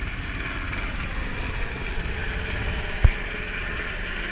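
Black Hawk military helicopter passing, a steady rumble mixed with wind on the microphone, with one sharp knock about three seconds in.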